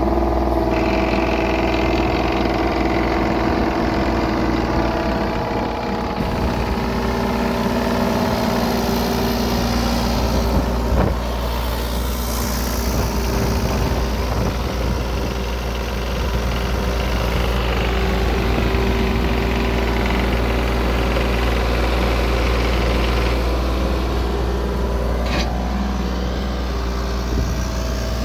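Kubota U35-4 mini excavator's diesel engine running steadily, heard close by as the machine sits still.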